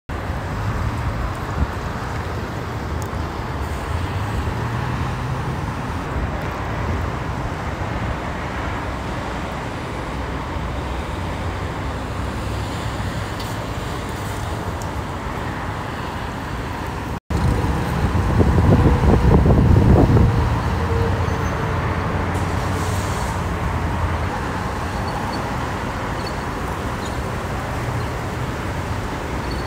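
Steady freeway traffic noise: engines and tyres of congested cars and trucks. Just after a cut, a louder low rumble swells for about two seconds as a heavy vehicle goes by.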